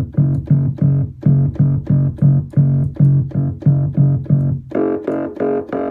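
Sylenth1 software synthesizer playing a lead patch built from two detuned pulse-wave oscillators through a bandpass filter, with short notes repeating at about three a second. A pitch envelope puts a click on each attack. Near the end the notes shift pitch and sound brighter.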